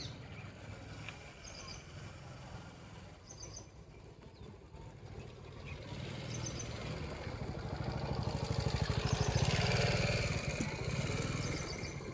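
A motor vehicle engine running, growing louder to a peak about nine seconds in and then fading as it passes. Short high bird chirps come every few seconds over it.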